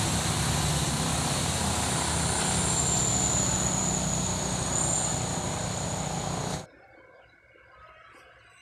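Forge air blower running steadily, feeding air into the charcoal fire: a loud rushing whirr with a low hum and a high whine. It cuts off abruptly about two-thirds of the way through.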